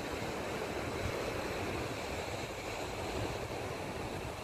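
Steady outdoor rush of wind and distant surf, with wind buffeting the microphone in an uneven low rumble.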